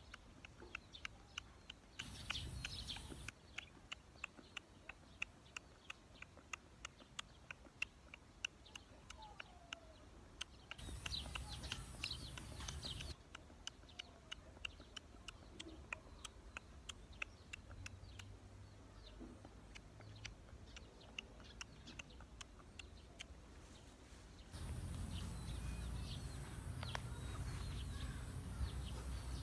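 Birds chirping outdoors, short quick calls repeating through. Three times there is a stretch of rushing noise, the last and longest near the end.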